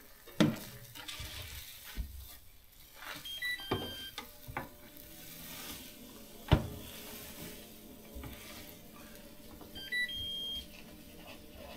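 Food sizzling faintly on a Blackstone griddle, with scattered clinks and knocks of utensils and dishes; the sharpest knock is about six and a half seconds in. Short high electronic beeps sound twice, about three seconds in and again near the end.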